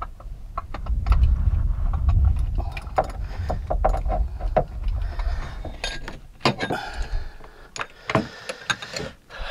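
Ratchet wrench with a socket on an extension clicking and clinking against metal while trying to loosen the oil filter in a personal watercraft's engine bay. There are many quick clicks and short metallic rings throughout, over a low rumble that fades after about five seconds.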